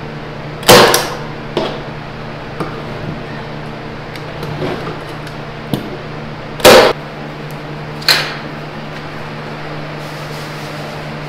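Staple gun driving staples through screen-printing mesh into a wooden frame: three loud, sharp snaps, one about a second in and two more about a second and a half apart later, with a few fainter clicks between, over a steady low hum.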